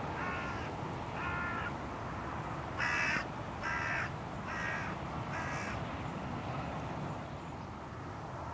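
Hooded crows cawing on a flyby: six harsh caws, loosely in pairs, the loudest about three seconds in, then only a steady background hiss.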